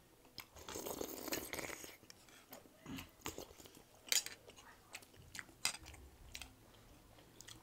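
Eating sounds at a table: metal spoons clicking and scraping against ceramic bowls and plates in short sharp ticks, with chewing and a slurp of soup from a spoon about a second in.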